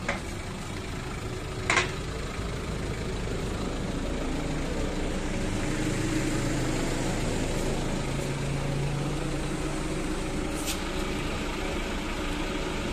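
A motor running steadily, with a low hum that strengthens in the middle; two sharp clicks, one a couple of seconds in and one near the end.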